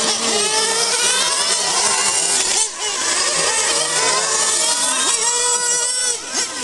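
Several radio-controlled model racing cars lapping a track together, their motors running high-pitched and overlapping, rising and falling in pitch as they brake into corners and accelerate out.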